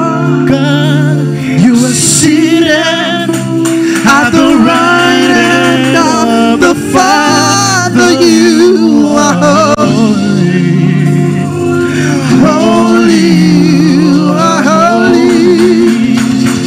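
A man sings a gospel worship song into a microphone, with long, wavering melodic lines over a steady instrumental backing.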